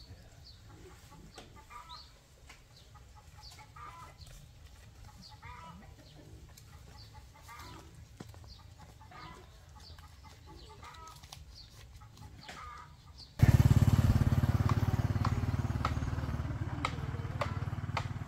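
Chickens clucking softly in short, scattered calls. About thirteen seconds in, a loud low rumbling noise starts abruptly and slowly fades.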